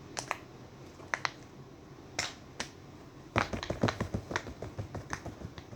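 Bubbles of a star-shaped silicone pop-it fidget toy being pressed in and popping. A few scattered sharp pops come first, then a quick run of pops from about halfway through.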